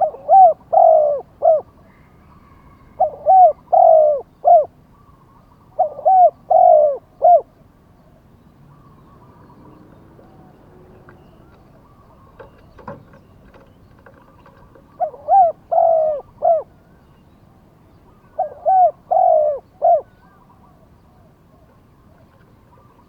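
Spotted dove cooing: five phrases of about four low coos each, a few seconds apart, with a long pause in the middle.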